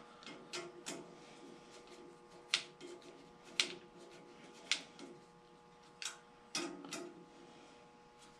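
Irregular sharp metallic clicks and taps, about eight in all, as the upper blade guard on a Delta 14-inch bandsaw is fitted and its Allen screw worked by hand and tool, over a faint steady hum.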